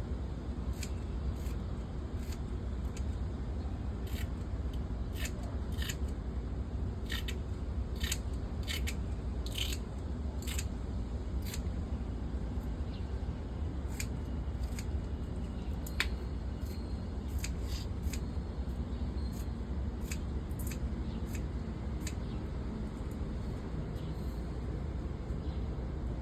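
A series of short, sharp snipping clicks, irregular and about one a second for most of the stretch, over a steady low rumble.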